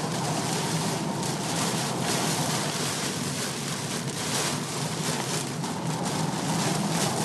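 Torrential rain falling hard on a car's roof and windshield, heard from inside the moving car as a dense, steady hiss, with a low hum of the car under it.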